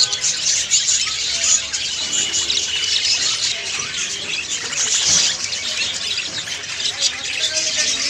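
A flock of caged budgerigars twittering together: many overlapping short, high chirps in a dense, unbroken stream.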